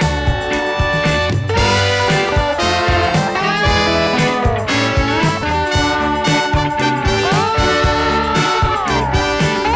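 Background music: upbeat swing-style tune led by brass over a steady beat.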